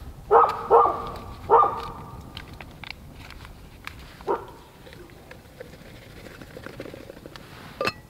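A dog barking: three short barks in the first second and a half and one more about four seconds in.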